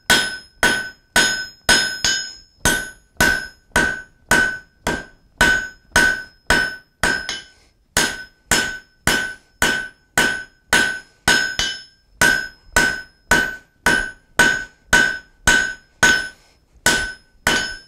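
Hand hammer striking a red-hot flat iron bar on a steel anvil in a steady rhythm of about two and a half blows a second, each blow with a short ringing tone. A brief pause comes about seven seconds in. The smith is drawing out a taper on the bar's end in its first heat.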